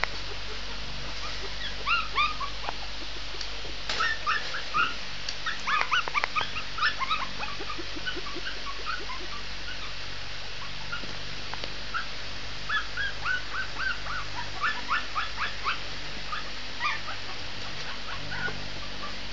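Shih tzu puppy whimpering and yipping: many short, high-pitched cries in several bursts, with a lull in the middle.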